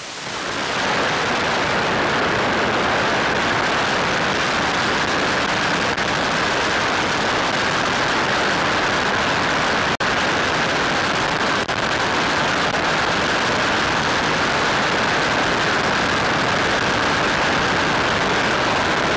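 Steady hiss on the audio feed of the wireless video camera on board a Zagi electric flying wing, with a faint steady whine in it and two brief dropouts about ten and eleven and a half seconds in.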